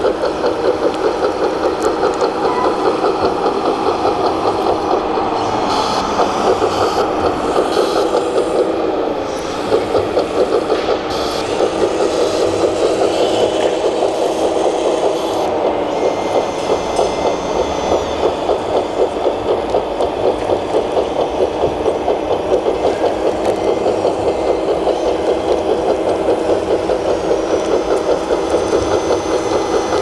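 Engine sound from a 1/14-scale RC model vehicle's sound module, an idling diesel-style sound that pulses quickly and evenly, with a few short clicks in the middle.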